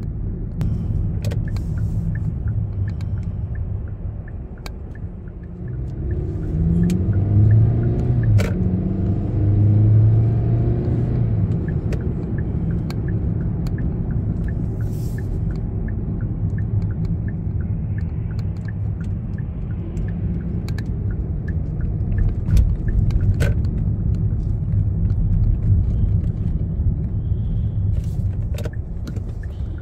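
Car engine and road noise heard from inside the cabin while driving, the engine rising in pitch as the car accelerates about six to twelve seconds in. The turn signal ticks steadily through the first two-thirds.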